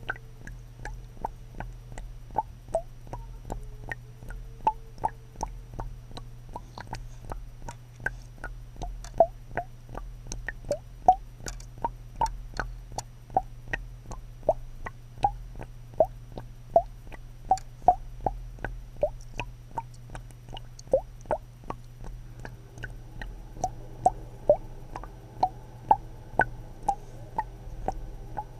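Water plopping in a regular run of short, pitched plops, about two a second, over a steady low hum.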